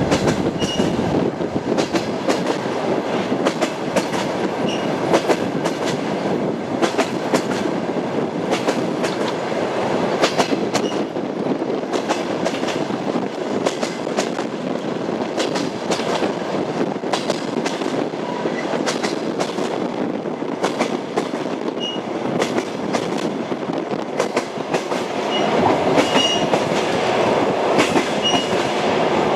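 Train wheels running on the rails: a steady rumble with irregular clickety-clack knocks from the rail joints and brief faint high squeaks, getting louder near the end.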